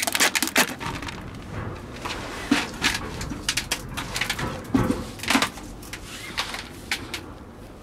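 A wooden scraper scraping small sea snails off rough concrete into a plastic bucket. A quick run of scrapes and clatters comes at the start, then scattered scuffs and knocks.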